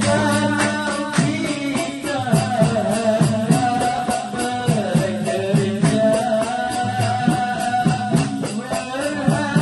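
Malay dikir jogho ensemble playing: a solo voice sings a long, wavering line over hand drums whose strokes drop in pitch, and a quick, steady shaker beat.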